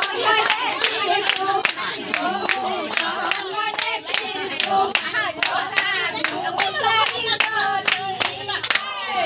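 A group of people singing together while hands clap in a steady rhythm, about three claps a second.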